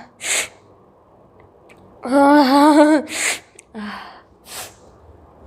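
A woman's drawn-out, wavering 'aah' as a sneeze builds, breaking into a sharp sneeze about three seconds in, with short breaths and sniff-like puffs before and after.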